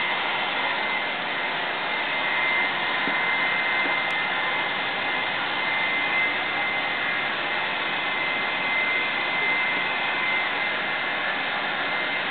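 Steady rushing hiss, even in level, with a thin constant high whine running through it.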